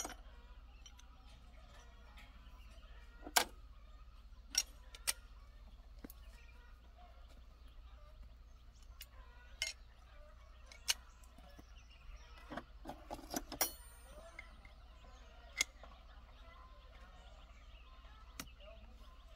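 Steel hand tools clinking against each other and against a metal toolbox as wrenches, a socket and a ratchet handle are picked out and handled: scattered sharp clicks, with a quick run of clinks about thirteen seconds in that ends in a short ring.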